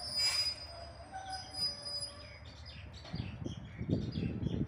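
Passenger train at a station: a thin, steady, high wheel squeal, then from about three seconds in an uneven low rumble, with birds chirping over it.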